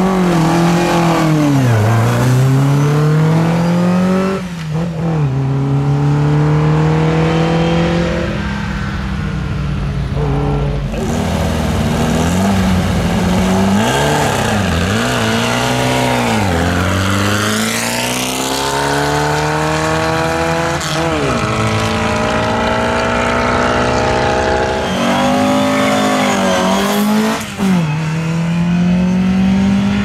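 Racing car engines accelerating hard, several cars in turn. Each engine's pitch climbs high and drops sharply at each upshift.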